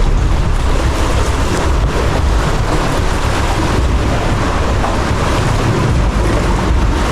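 Wind buffeting the microphone over the sea around a kayak: a steady, deep rush and rumble.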